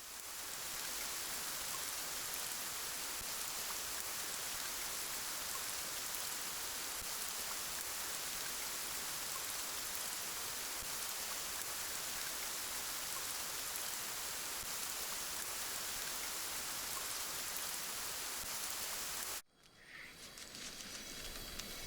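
Steady rain falling, an even hiss that fades in at the start and cuts off suddenly a couple of seconds before the end, where a different sound with faint high tones begins.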